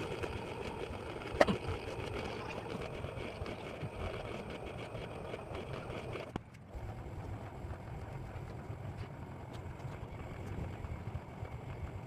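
Steady low rumbling background noise with a single sharp click about a second and a half in. About six seconds in it breaks off briefly, and a lower rumble carries on.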